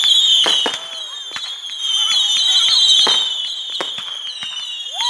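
Fireworks display: aerial shells burst with about six sharp bangs, over high whistling tones that fall slowly in pitch.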